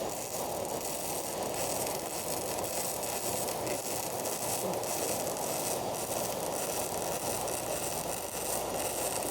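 Electric arc welding: the arc gives a steady, unbroken crackling hiss.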